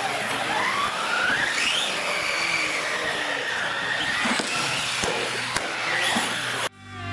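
Radio-controlled UTV racing trucks running: a high motor whine that climbs steeply in the first two seconds, then holds and falls away as they ease off, over a steady hiss. The sound cuts off abruptly just before the end.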